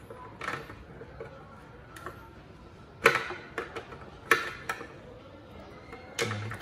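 Hard-plastic clicks and light rattles from a Hyundai Eon tail light bulb socket and its wiring being handled and twisted into the tail light housing. A few sharp separate clicks, the loudest about three seconds in and another a second later.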